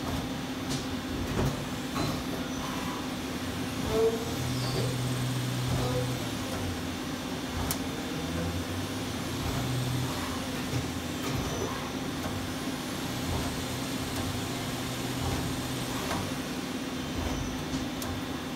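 Amera Seiki TC-3XL CNC lathe running with a steady hum, while a high whine rises, holds and falls back three times, with a few light clicks.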